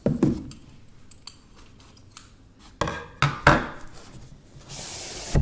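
Cardboard smartphone box being handled and opened: a few sharp knocks and taps, then a brief scraping slide, ending in a thump.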